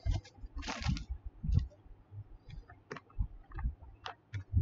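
Scattered light clicks and low bumps of hands working at a computer desk. There is a short breathy hiss about a second in.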